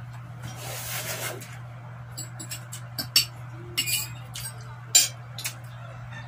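Eating sounds at a table: a fork clinking against plates among a few sharp clicks, the loudest about three and five seconds in, over a steady low hum.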